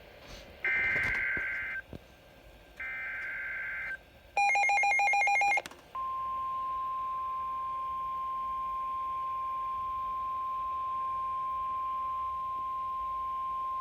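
NOAA Weather Radio SAME alert signalling: two screechy, second-long digital data bursts, then a loud second of rapid beeping, then the steady 1050 Hz warning alarm tone starts about six seconds in and holds on, heralding a flash flood warning.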